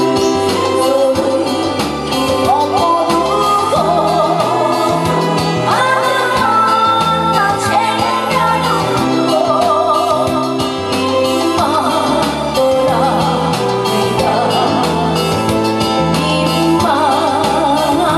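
A woman singing through a microphone with wavering vibrato on held notes, over instrumental accompaniment with a steady beat and bass line.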